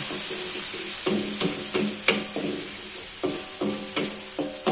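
Garlic and ginger paste sizzling in hot oil in a wok as it is stirred with a wooden spatula: a steady high frying hiss. Background music of single melody notes, about three a second, plays over it.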